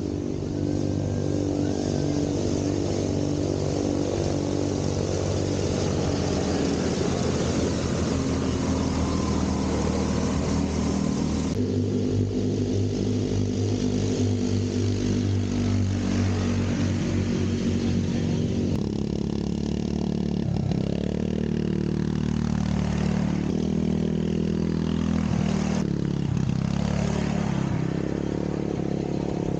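Snowmobile engines running, the engine note shifting abruptly about 12 and 19 seconds in, then revving up and down several times in the second half.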